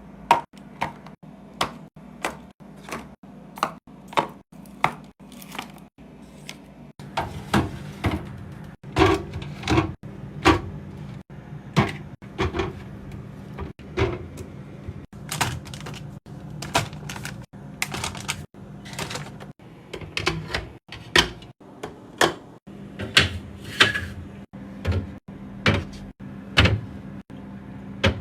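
Repeated sharp clicks and knocks of tools and parts being handled on a refrigerator under restoration, irregular at about one to two a second, over a steady low hum.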